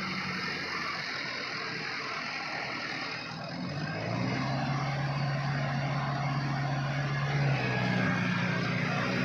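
Kubota MU5501 tractor's four-cylinder diesel engine running under load as it drives a rotavator through wet, sticky mud. The engine note drops and grows louder about four seconds in, then rises again near the end.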